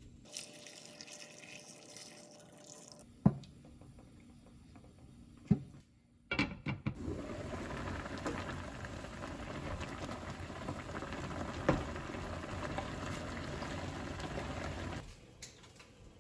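Sugar poured from a plastic container onto sliced radish in a frying pan, a light hiss for about three seconds, followed by two sharp knocks. Then a radish braise simmers in the pan as liquid is poured in from a metal bowl: a steady watery noise for about eight seconds that cuts off suddenly.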